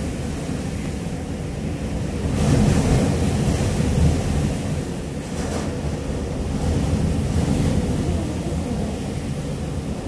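Hurricane-force wind blowing with driving rain, buffeting the microphone and swelling in gusts, loudest about two and a half to four seconds in.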